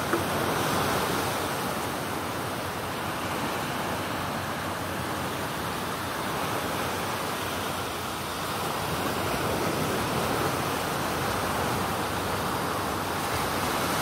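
Surf breaking on a sandy beach: a steady wash of waves that swells a little now and then.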